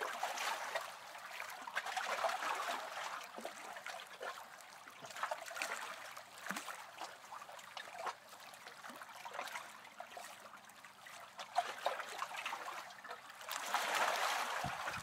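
Faint trickling water with scattered light clicks, and a louder rush of noise near the end.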